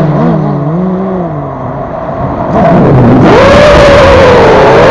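FPV racing quadcopter's motors, heard through the onboard camera: the whine sits low and wavering with the throttle pulled back, then climbs about three seconds in to a steady high whine as the drone speeds up.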